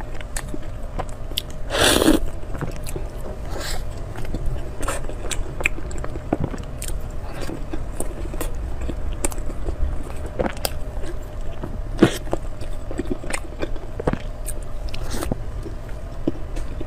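Close-up mouth sounds of eating soft chilled cream buns: biting and chewing with frequent small wet clicks, and a louder mouthful about two seconds in.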